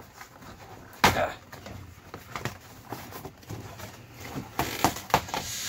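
Cardboard shipping box being ripped open by hand: one loud tear about a second in, then scattered crackling of the cardboard and a cluster of sharper rips near the end.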